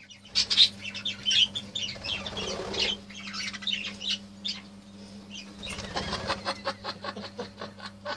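Budgerigars chirping and chattering in quick runs of short notes, with two short rustling stretches about two and six seconds in.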